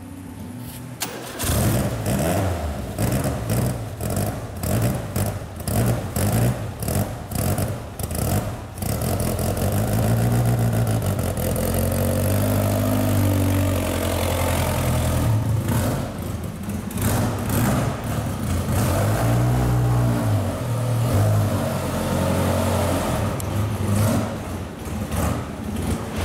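Renault Alpine A110 1300's Cléon-Alu Gordini four-cylinder engine starting about a second in, then revved in a run of quick blips with longer stretches held at higher revs, the pitch rising and falling.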